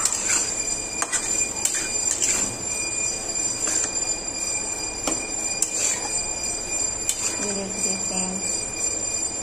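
Steel spoon stirring macaroni in a pan: irregular clinks and scrapes of metal on the pan over a steady high-pitched whine.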